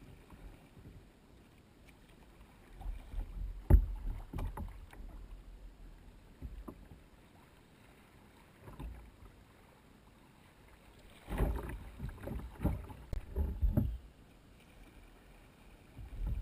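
Kayak paddle strokes from the bow: water splashing and dripping off the blades and slapping against the hull, in two runs of several strokes each, about three seconds in and again after eleven seconds, with quieter water noise between them.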